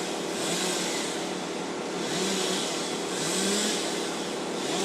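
Chainsaw running, its engine revving up in four rising surges about a second and a half apart, as it is worked through a tree.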